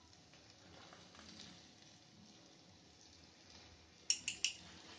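Faint, steady sizzle of boneless chicken pieces cooking in a nonstick frying pan on low flame, with three quick sharp clicks about four seconds in.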